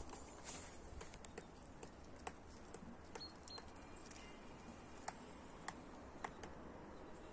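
Faint rustling of blackberry bramble leaves and canes being handled while picking berries, with scattered small clicks.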